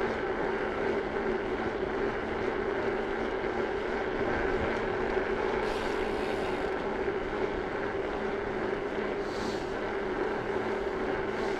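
Steady rush of wind on the microphone and tyre hum from a road bicycle rolling along asphalt, a constant low drone under an even hiss, with a couple of brief hissy swells about six and nine seconds in.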